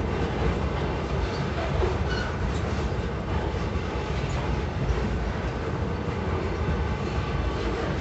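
Freight train's boxcars rolling past over a level crossing: a steady, unbroken noise of steel wheels running on the rails.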